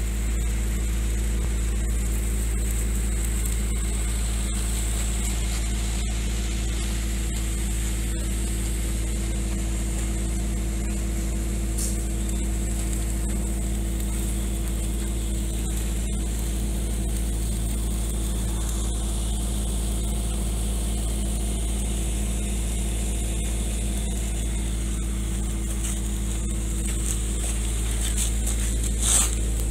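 Steady low machine hum with a constant deep drone and a few held low tones, with a brief louder noise near the end.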